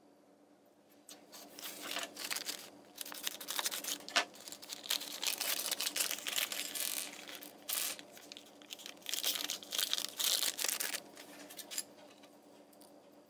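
Thin plastic blind bag of a LEGO minifigure crinkling and tearing as it is worked open, in uneven crackly bursts with small clicks, stopping about a second before the end.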